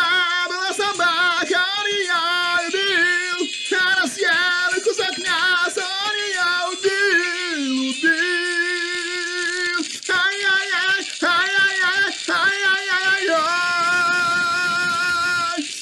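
A high voice singing a melody unaccompanied, moving between held notes, with a long held note near the end.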